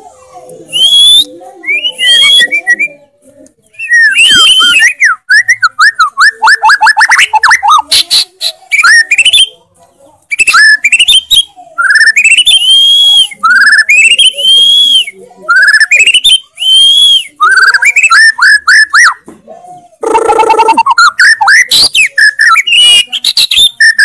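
White-rumped shama (murai batu) singing loudly and continuously: phrases of clear whistles that rise and fall, fast trills, and the same rising note repeated several times in a row, with a lower, buzzier phrase about twenty seconds in.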